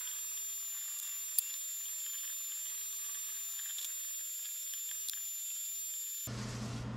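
Faint steady hiss with a thin, high-pitched steady whine and no low sound at all, as from heavily filtered or muted audio; two faint ticks, about a second and a half in and about five seconds in.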